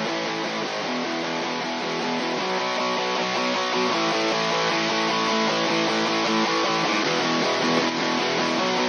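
Recorded rhythm electric guitars strumming steadily, a guitar bus playing back through a 500-series stereo bus compressor.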